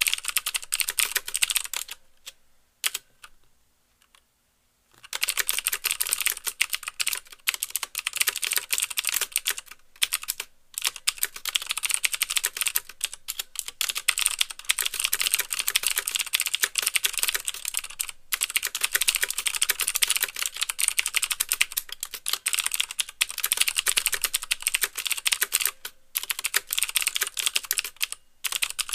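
Fast typing on a CM Storm Quick Fire Stealth mechanical keyboard with clicky Cherry MX Blue switches: each keystroke gives the switch's click and the clack of the key bottoming out. The typing pauses about two seconds in, with only a few lone keystrokes, and picks up again at a steady fast pace about five seconds in.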